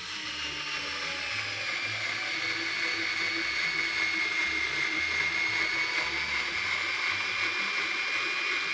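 Xiaomi Mi Cordless Screwdriver (3.6 V) motor and gearbox whining steadily as it drives a 6 cm wood screw into wood without a pilot hole. The pitch sags slightly about one and a half seconds in as the load grows, and the whine gets gradually louder.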